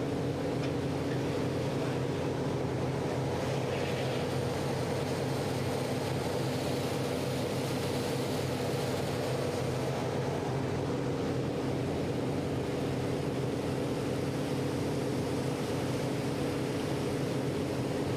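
A fireboat's engines running steadily while underway, a constant low drone of several steady tones, with water rushing along the hull beneath it.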